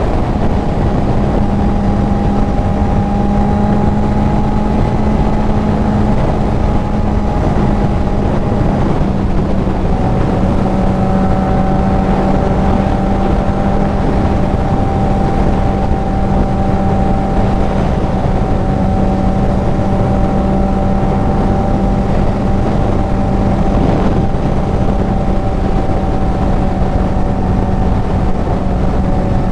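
Kawasaki Z900 inline-four with an aftermarket CS Racing full exhaust running at a steady cruise, its note dropping slightly about nine seconds in, under heavy wind rush on the helmet microphone.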